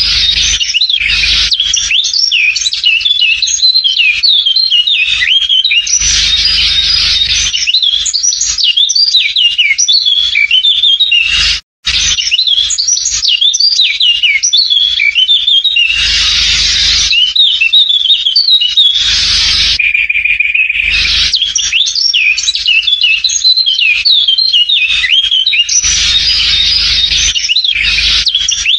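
Dense, continuous chirping and chattering of a flock of small birds, many overlapping short calls and whistles. The sound cuts out abruptly for a moment about twelve seconds in, then resumes the same.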